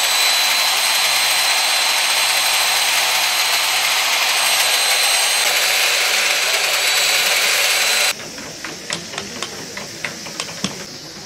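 Hand-held corded electric power tool running steadily against wood, with a high whine over a loud rushing noise. It cuts off abruptly about eight seconds in, leaving quieter scattered sharp clicks.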